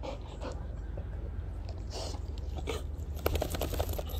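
A dog snapping its jaws at flying bugs: soft mouth sounds, then a quick run of sharp clicks about three seconds in.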